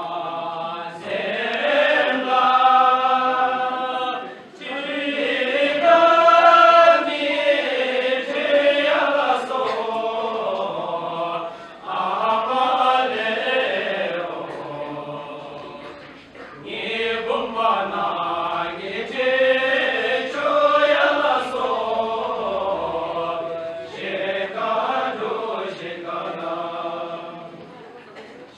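A group of Bhutanese dancers singing a traditional folk dance song in unison, without instruments, in long drawn-out phrases whose pitch rises and falls, with short breaks between phrases.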